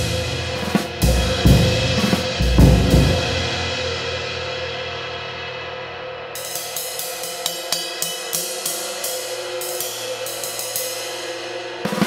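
A 20-inch medium-light ride cymbal, hand-hammered from B20 bronze, played with a stick on a drum kit. The first few seconds carry drum hits under the cymbal's wash, which then fades. From about halfway a ride pattern of stick strokes, two or three a second, and near the end a louder hit with the drums.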